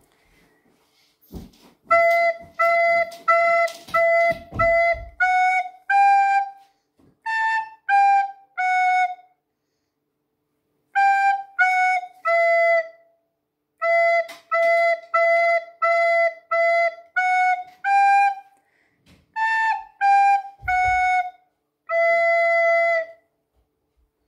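Soprano recorder playing a simple folk tune one separately tongued note at a time on E, F, G and A. It plays two phrases with a pause of about two seconds between them. The tune opens on five repeated notes and ends on one longer held note.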